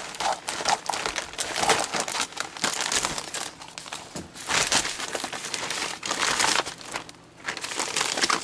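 Plastic courier mailer bag crinkling and rustling as hands pull it open and reach inside, with a brief lull about seven seconds in.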